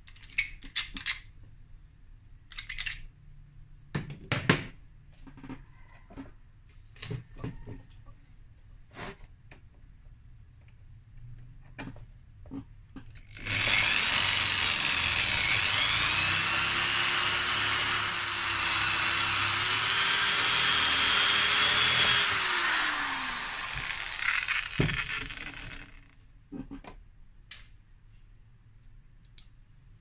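Scattered clicks and knocks, then an electric drill runs for about twelve seconds, its whine wavering as the load changes and dropping in pitch as it slows to a stop.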